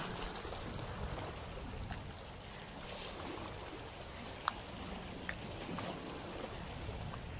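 Sea water washing and lapping against the rocks of a breakwater, a steady quiet wash. Two faint short ticks come about halfway through.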